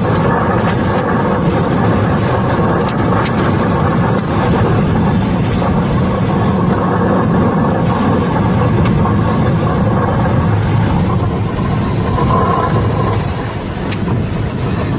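Tornado wind buffeting a car, heard from inside the cabin as a loud, steady rushing noise with scattered sharp clicks. It eases slightly near the end.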